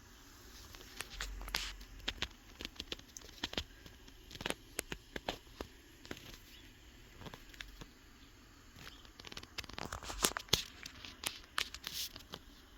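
Hands handling a new pair of sneakers and their packaging: scattered light taps, rustles and paper crinkles. The handling is busiest a second or two in and again from about nine to twelve seconds in.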